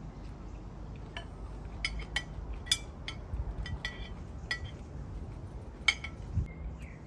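Cutlery clinking against a plate and a glass bowl while eating: several sharp, scattered clinks, the loudest about three seconds and six seconds in.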